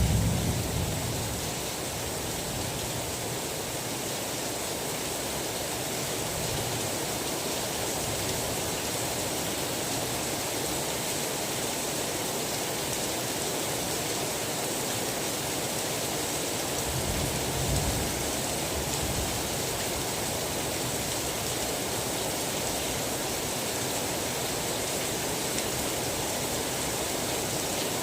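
Steady rain falling, a dense even hiss. Low rumbles of distant thunder fade away in the first couple of seconds and swell briefly again about two-thirds of the way through.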